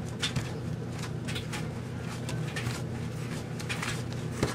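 A spoon stirring stiff cookie dough in a bowl: a string of short scrapes and clicks, with a sharper knock near the end, over a steady low hum.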